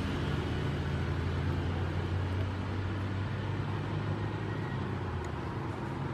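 A motor vehicle's engine running steadily, a low hum that slowly grows quieter.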